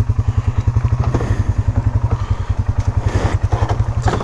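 Polaris Sportsman 570 ATV's single-cylinder engine running steadily with an even, rapid low chugging pulse. A few light clattering or scraping sounds come near the end.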